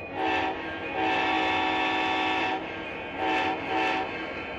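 Model train locomotive's horn sounding four blasts, short, long, short, short, each a chord of several steady notes, over a steady running rumble.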